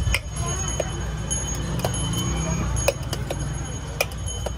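Metal spoon scraping and clinking against a stainless-steel pot while scooping out pizza filling, with a few sharp clinks over a steady low rumble.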